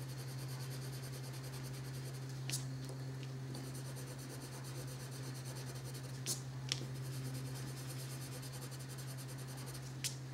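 Colored pencil shading on paper: a soft, rapid scratching of light back-and-forth strokes as a layer of cloud blue goes over terracotta, with a few faint clicks along the way and a steady low hum underneath.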